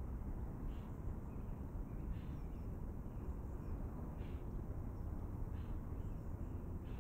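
A bird calling in short single notes, about five times, over a steady low rumble.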